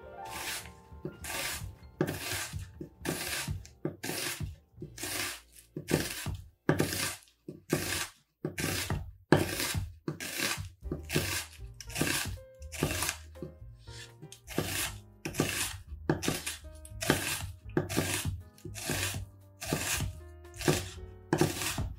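Onion being thinly sliced along the grain with a long kitchen knife on a wooden cutting board: a crisp cut ending in a light knock on the board, about one and a half strokes a second, with soft background music underneath.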